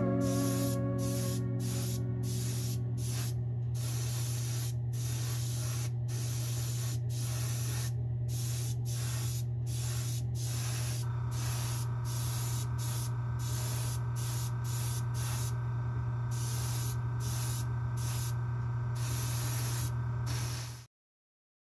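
Airbrush spraying paint in short, repeated bursts as the trigger is worked, a hiss broken by brief pauses about once or twice a second. Under it runs a steady low hum, joined about halfway by a steady higher tone, and the sound cuts off abruptly near the end.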